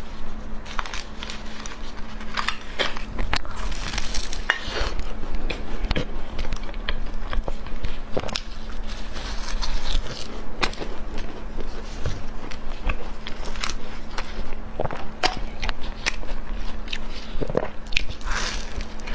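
Close-miked biting and chewing of soft chocolate cake, with many irregular sticky mouth clicks and crackles.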